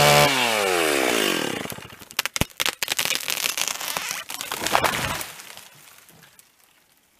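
Two-stroke chainsaw running at full throttle, then its engine winds down steadily as the throttle is released. Wood then cracks and snaps in a series of sharp reports as the tree gives way, ending in the crash of the trunk and branches landing in snow about five seconds in.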